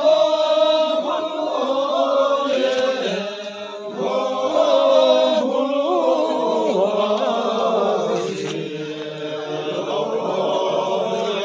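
Voices chanting a slow, melodic chant, with long held notes that bend slowly in pitch.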